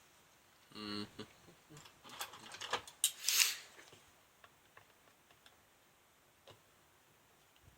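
Small clicks and taps of desoldering work on a circuit board with a spring-loaded desoldering pump, with one louder, short snapping hiss about three seconds in.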